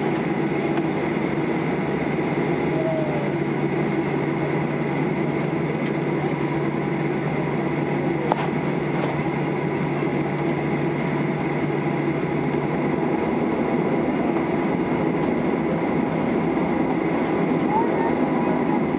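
Steady cabin noise inside a Boeing 737-800 standing still on the ground: a constant ventilation hum with a thin steady high whine. A single short click comes a little under halfway through.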